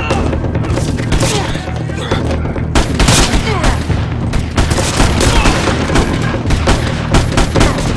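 Film soundtrack gunfire: many gunshots in quick succession, over a steady bed of dramatic music.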